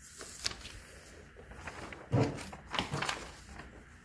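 A sheet of printer paper being handled and picked up off a wooden table: a few short crinkles and rustles, with one louder knock about two seconds in.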